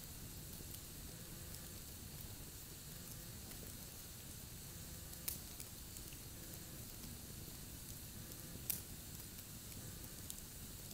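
Wood campfire burning: a faint steady hiss with scattered small crackles and two sharper pops, about five and nine seconds in, the second the louder.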